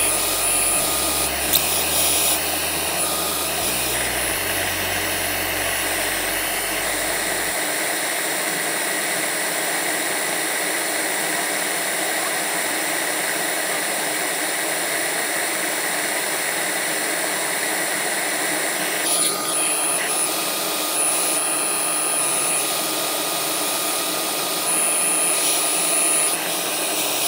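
CNC router spindle running with a steady high whine while the dust extractor draws through its hose, as the spindle makes a surfacing pass that faces the top of an oak slab.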